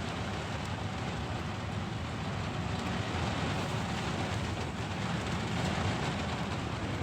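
Rain falling steadily on a parked car, heard from inside the car: a dense, even patter with no break.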